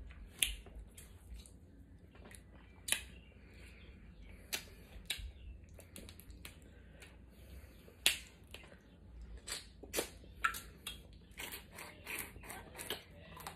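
Snow crab leg shells being cracked and snapped apart by hand: a string of sharp, irregular cracks and clicks, a few much louder than the rest.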